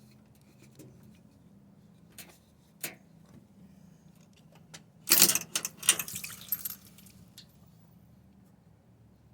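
Brief metallic jingling and clinking of small metal objects, about a second and a half long around the middle, after two single clicks and over a faint low hum.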